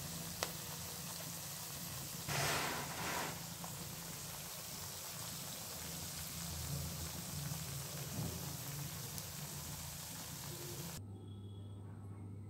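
Goat tripe sizzling as it fries dark in oil in a pan, a steady crackling hiss, with a louder stretch of sizzle lasting about a second, about two seconds in. The hiss stops abruptly near the end.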